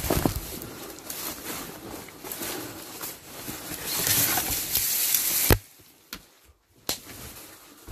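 Rustling of dry, overgrown weeds and brush as someone pushes through them on foot, growing louder toward the middle. It ends with one sharp knock about five and a half seconds in, then it goes much quieter.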